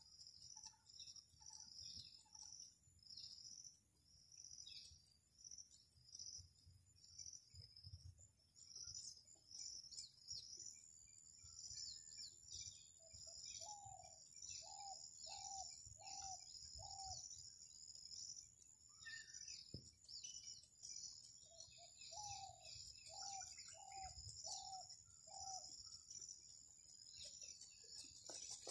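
Faint wild birdsong: many small birds chirping in quick, high, repeated calls, and twice a run of five short, evenly spaced cooing notes from another bird.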